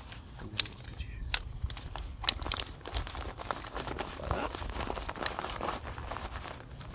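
Nylon fabric seat of a Vango Microlite camping chair rustling and crinkling as it is folded and rolled up by hand, with sharp crackles now and then.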